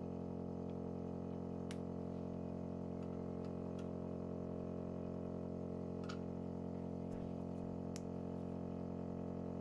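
A steady low hum made of many fixed tones, like lab equipment or electrical hum, with a few faint, light clicks of plastic labware as a pipette is worked over agar plates.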